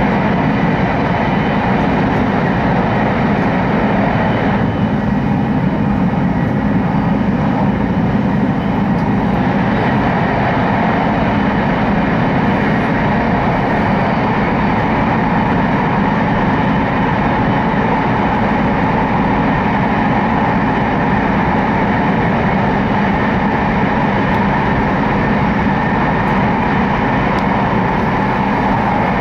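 Steady running noise inside the cabin of an E2 series Shinkansen travelling through a tunnel: an even, unbroken rumble of wheels on rail and air rushing past the car.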